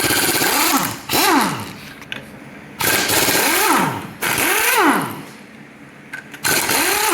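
A power tool run in five short bursts, its pitch rising and then falling each time, as bolts are taken off the engine.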